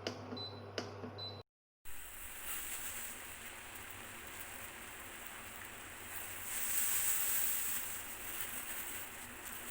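Water with spices for kadha simmering in a pan on the stove: a steady hiss that swells for a couple of seconds about seven seconds in. Two clicks come in the first second, before a brief break in the sound.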